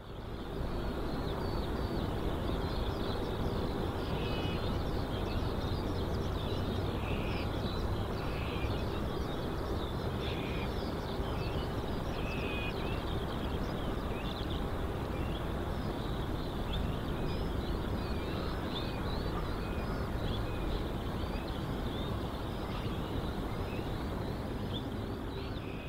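Birds chirping in many short calls over a steady low rumble.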